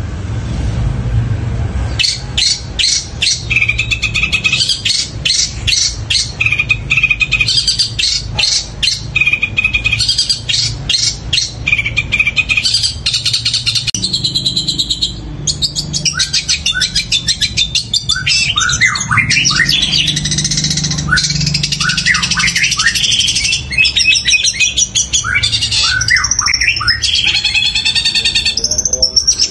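Long-tailed shrike (cendet) singing loud and long, starting about two seconds in with a fast string of sharp chirps, then changing to varied whistled and downslurred notes. The song mixes in mimicked tree-sparrow calls.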